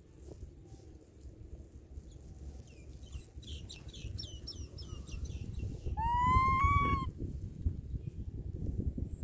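Outdoor animal calls: a quick run of short, falling chirps, then about halfway through a single call of about a second that rises slightly and then holds. A low rumble sits underneath throughout.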